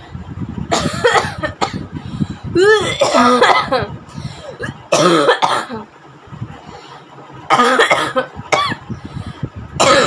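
A woman coughing on purpose in about four separate bouts of harsh coughs, some of them voiced and strained, with short pauses between bouts and another bout starting near the end.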